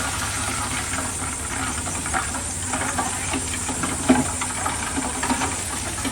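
Heavy diesel earthmoving machinery running steadily, with scattered knocks and clatter of stone, one louder knock about four seconds in.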